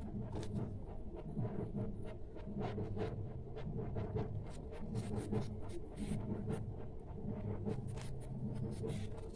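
Light, irregular clicks and taps of small miniature cooking utensils being handled, a few per second, over a low steady hum.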